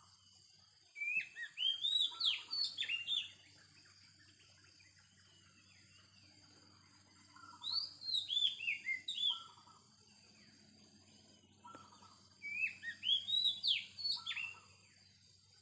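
Wild Oriental magpie-robin (kacer) singing: three bursts of rapid, sweeping whistled notes a few seconds apart, about a second in, around the middle, and near the end, over a faint steady high-pitched drone.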